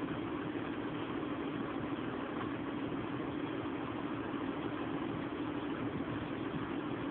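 An engine running steadily at a constant idle, a continuous drone with no change in pitch or level.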